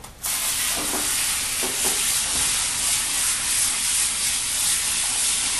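Pistol-grip hose sprayer spraying water onto a soapy dog's coat to rinse out shampoo: a steady hiss that starts just after the beginning.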